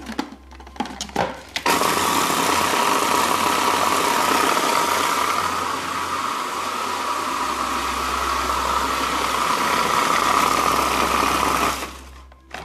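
Food processor running, mixing biscuit crumbs with melted butter into a cheesecake base: a steady motor whine over a grinding rush. It starts about two seconds in and stops abruptly near the end, after a few clicks as the lid pusher is fitted.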